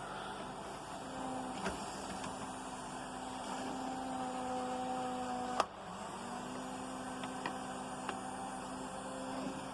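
Small electric motor of a Tyco model locomotive whining steadily as it runs. A sharp click comes about halfway through, the whine drops out and then winds back up to speed.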